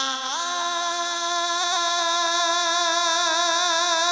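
A man singing one long held note of a devotional verse. He rises in pitch shortly after the start, then holds the note steady with a slight waver.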